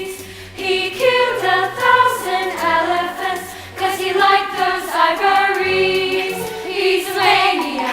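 Girls' choir singing a song with a low instrumental accompaniment; the voices pause briefly just after the start and again about halfway through.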